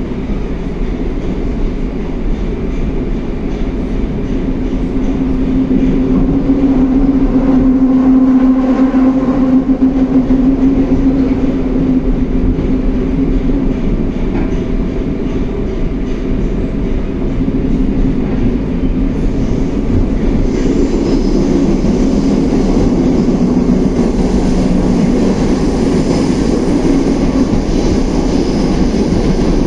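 81-760A/761A "Oka" metro train running, heard from inside the passenger car: a continuous rolling rumble with a low hum that grows louder over the first several seconds and then holds.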